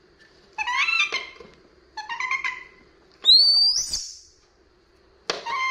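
A young pet monkey calling: three high-pitched coos about a second apart, the last one longer, rising sharply and then falling away.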